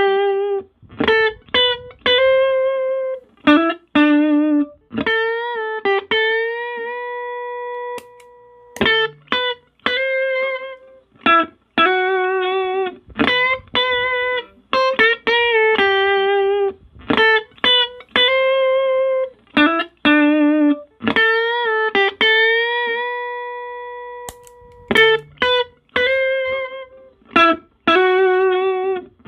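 Clean electric guitar, a Sterling JP60 through a compressor pedal and a Roland Cube amp, playing a single-note melodic line with vibrato. Several long held notes ring out and fade slowly, and the phrase repeats.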